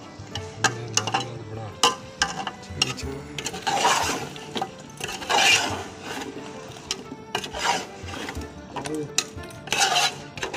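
Metal ladle stirring diced potatoes and peas in an aluminium pot, with sharp clinks against the pot and several longer scrapes along its sides.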